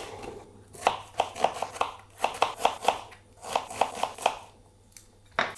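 Kitchen knife chopping an onion on a wooden cutting board: quick strokes in three short runs, about five a second, with brief pauses between them.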